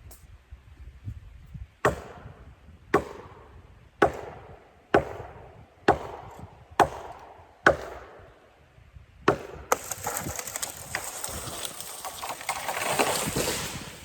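Hatchet chopping into wood: eight sharp strikes about a second apart, followed by a few seconds of rustling and crackling.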